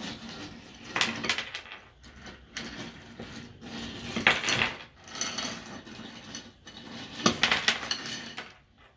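A small glass bowl pushed and twisted down into a ceramic bowl of ice cubes: ice rattling and glass clinking and scraping against the ice, in three short bursts of clatter.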